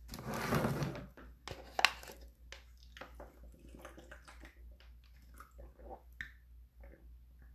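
A brief rustling noise, then a sharp click about two seconds in, followed by scattered faint clicks and rustles.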